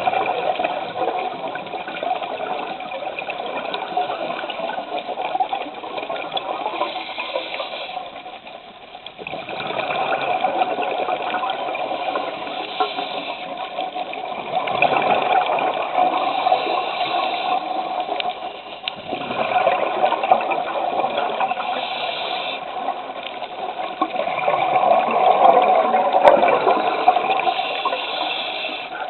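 Scuba diver breathing through a regulator underwater: exhaled bubbles gurgling and rushing, swelling and dipping with each breath about every five seconds.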